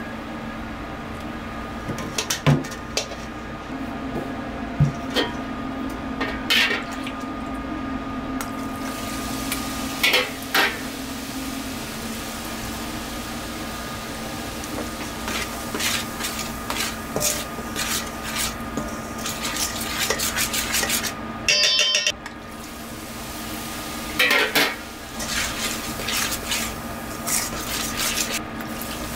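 Cookware and metal utensils clinking and knocking against pots and bowls at irregular intervals over a steady hum, with one brief ringing clang about two-thirds of the way through.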